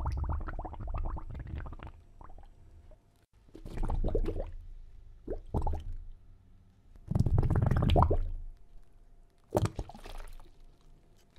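Water bubbling and gurgling in several separate bursts of about a second each, with short quiet gaps between.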